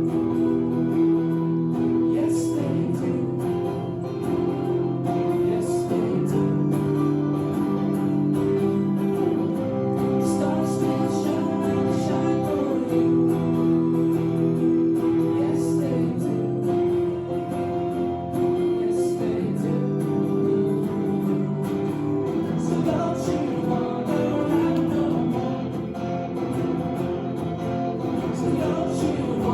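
Live band music with guitar, recorded on a cell phone, with long held notes throughout.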